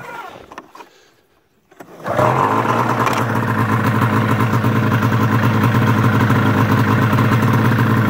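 A 1999 Arctic Cat ZR 600 EFI snowmobile's two-stroke engine catches about two seconds in and runs steadily. It is started with its throttle safety switch unplugged, to test whether that stops it from cutting out.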